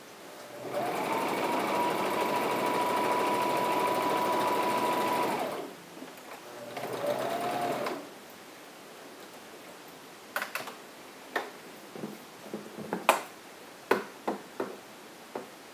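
Electric household sewing machine stitching a seam: one long run of about five seconds with a steady motor whine, then a short run of about a second. Afterwards a series of sharp snips of scissors trimming the thread and fabric.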